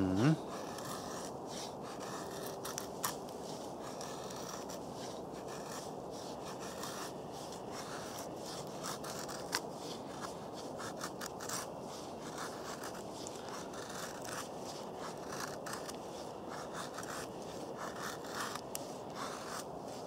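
Scandi-ground Berloga Knife First SE blade shaving thin curls down a wooden stick to make a feather stick: a run of short, irregular scraping strokes as the edge peels the wood.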